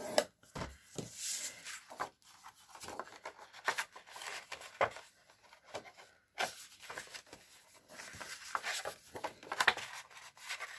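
Heavy white cardstock being scored with a stylus on a scoring board, then picked up, turned and flexed by hand: a run of short, irregular scrapes and paper rustles, the sharpest one just after the start.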